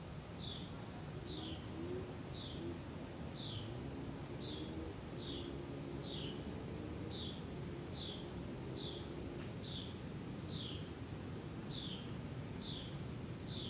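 A small bird repeating a short, high, downslurred call note a little more than once a second, over a steady low background rumble.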